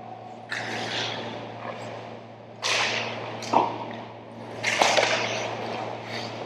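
Ice skates scraping and carving the ice in three sharp hissing strokes, with a single sharp clack a little past halfway, over a steady low arena hum.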